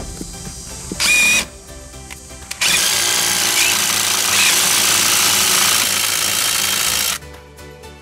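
Cordless impact driver running on a bolt at the rear brake drum's hub: a short burst about a second in, then a steady run of about four and a half seconds that stops suddenly.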